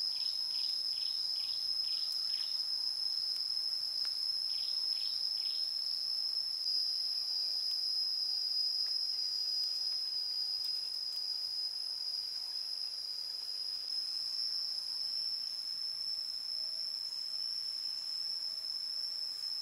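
Steady, high-pitched chorus of insects such as crickets or cicadas, one unbroken shrill tone. Early on a short series of five quick falling chirps sounds, and three more come about four seconds in.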